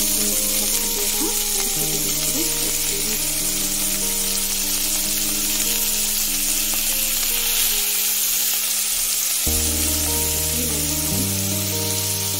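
Chopped onions sizzling and frying in hot mustard oil in a steel kadai, a steady hiss. Soft background music of held chords plays underneath, changing every few seconds.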